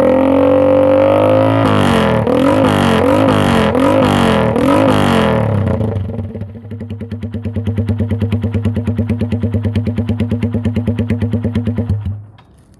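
Suzuki GN125H single-cylinder four-stroke exhausting through a bullet-style muffler: revved up and held, then blipped about five times in quick succession, then dropping back to a steady, pulsing idle that cuts off near the end.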